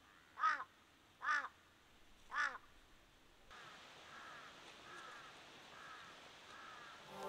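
Crow cawing: three loud, harsh caws in the first couple of seconds, then a string of fainter caws, about one a second.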